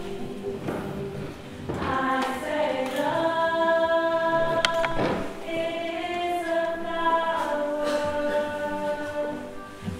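Choir singing slow, long-held chords.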